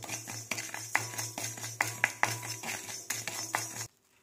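Spatula stirring rock salt as it dry-roasts in a kadai: irregular scrapes and clicks of the salt crystals and spatula against the pan, stopping abruptly near the end.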